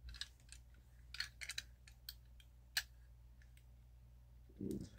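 Faint, irregular small clicks and taps from a die-cast toy van being handled, with a brief low sound near the end.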